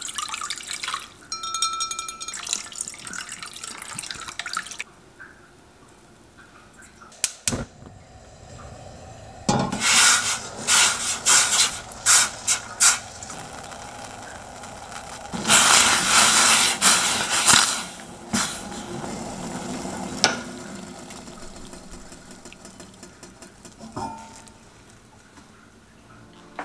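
Water poured into a stainless-steel saucepan, then a sharp click, then the pickling liquid simmering in the pan in repeated bursts of bubbling.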